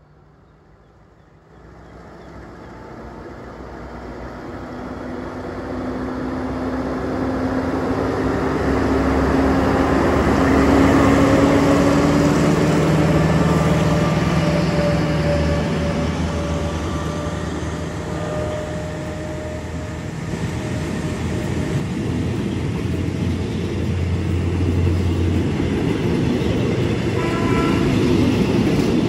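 Caterpillar-engined Alstom diesel-electric locomotive powering up to pull a train away: its engine note climbs in pitch and grows louder over about ten seconds, then holds steady as the train rolls out.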